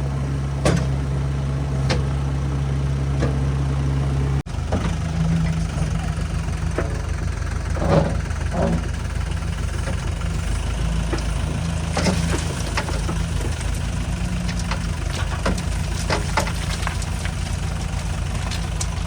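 Heavy diesel machinery engine running steadily. About four seconds in it cuts abruptly to a different engine sound with a rapid low pulsing, and there are scattered short knocks throughout.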